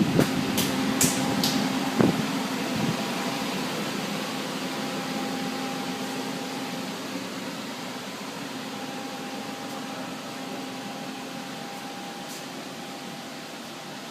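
Steady machine hum with a couple of constant tones from a 1991 Haas VF-1 vertical machining center running, with a few sharp clicks in the first two seconds. The hum fades slowly.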